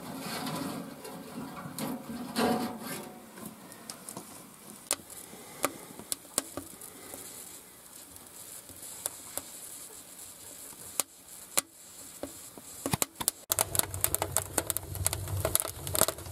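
Kindling crackling in a small wood stove as the fire catches, with sharp pops scattered throughout. The pops come faster over a low rumble near the end.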